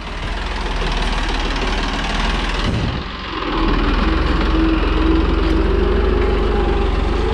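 Massey Ferguson 9500 tractor's diesel engine running steadily under load while it pulls a three-bottom mouldboard plough through the soil. There is a brief dip about three seconds in, after which a steady hum joins the engine.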